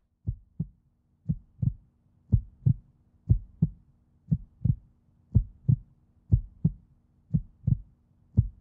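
Heartbeat sound effect: paired lub-dub thumps, about one pair a second, over a faint steady hum.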